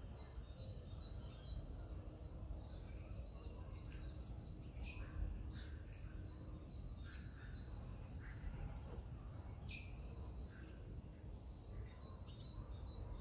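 Outdoor ambience: a steady low rumble with small birds chirping in short high calls now and then, and one brief low bump about five seconds in.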